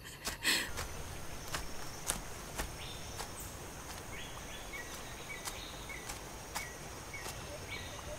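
Night-time insect ambience: crickets chirping steadily, with a short call repeating about every half second from about three seconds in. A brief voice sound comes near the start, and faint scattered clicks run throughout.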